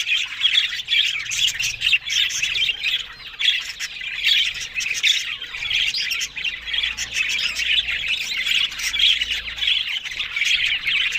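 Budgerigars chattering and chirping in a continuous, dense stream of quick high calls.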